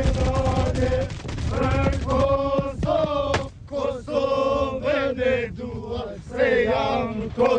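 A group of men chanting in unison, with long held shouted notes that break every half second to a second. Rapid rifle shots crackle under the chant in the first second.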